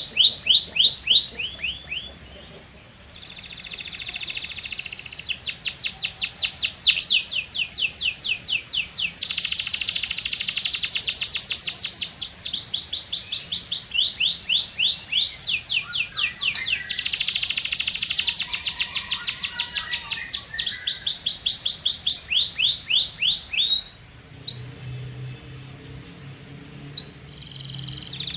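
Canary singing a long song of rapid trills: each phrase is a fast run of repeated high notes, switching to a new phrase every second or two. There is a short lull about two seconds in, and a quieter stretch near the end.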